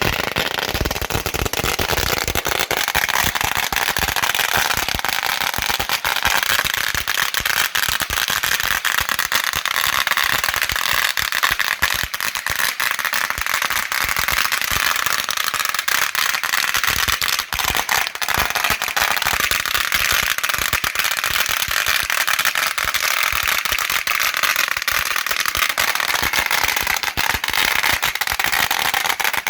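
A long string of firecrackers, an 8000-cracker roll, going off in a dense, rapid crackle of bangs without a break.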